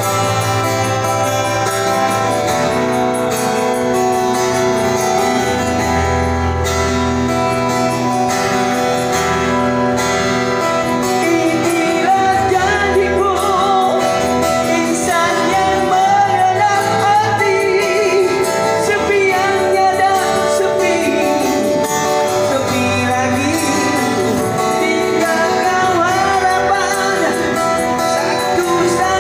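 Live busking performance of a Malay pop ballad: strummed acoustic guitar with low bass notes, with a singer's voice coming in about eleven seconds in and carrying on over the accompaniment.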